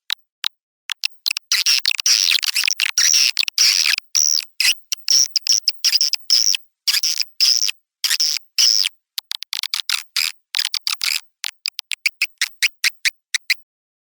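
Swiftlet calls played as a lure sound for swiftlet houses: rapid dry clicks alternating with stretches of high, buzzy twittering, with no low end at all. The twittering is densest between about one and four seconds in and again around the middle, with scattered clicks near the end, and it stops shortly before the close.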